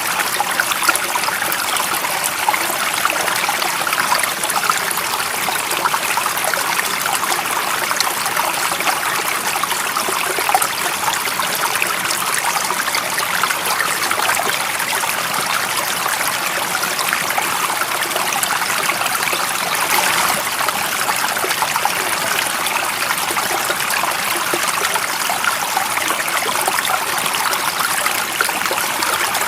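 Stream water running and trickling, a steady even rush with fine splashing detail.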